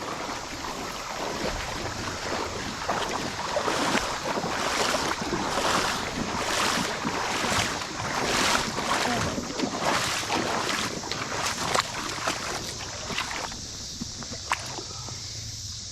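Creek water splashing and sloshing in repeated surges about once a second, dying down near the end.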